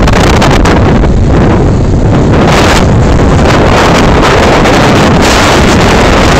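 Strong wind blowing straight onto the microphone: a loud, steady buffeting noise with a deep low rumble.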